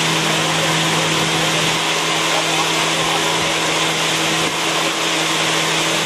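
A boat's motor running steadily while under way: a constant low hum beneath a loud, even rush of noise.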